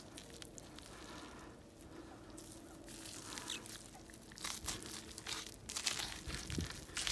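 Knife cutting through a cooked ham, a faint irregular run of short scrapes and tearing noises that starts about two and a half seconds in and comes thicker near the end.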